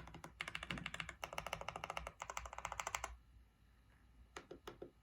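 Fast typing on a GMK67 mechanical keyboard with Akko V3 Cream Blue Pro clicky switches: a dense run of key clicks that stops about three seconds in, followed by three or four separate keystrokes near the end.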